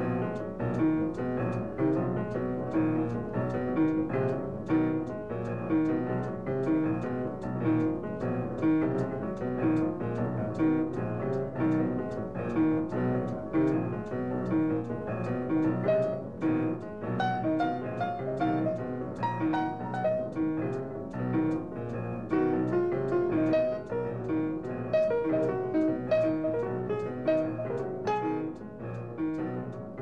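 Late-1940s jazz recording with piano to the fore, playing quick lines over upright bass.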